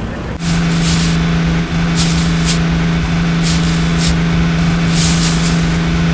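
Dubbed-in heavy-machinery engine sound for a toy wheel loader: a steady droning engine starting about half a second in, with four short air hisses over it at intervals.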